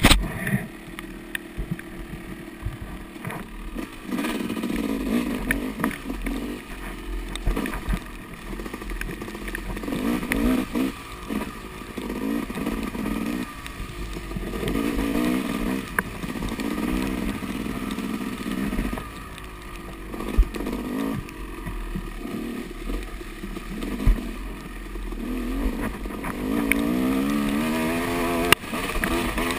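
Yamaha dirt bike engine under the rider, revving up and falling back again and again as the throttle is worked through the trail's turns, with scattered knocks and clatter from the bike over rough ground.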